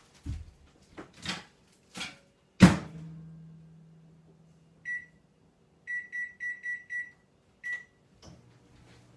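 A microwave oven being set going: a few knocks and a loud thud, then high keypad beeps, first one, then a quick run of five, then one more. After the last beep the oven starts running with a low hum near the end.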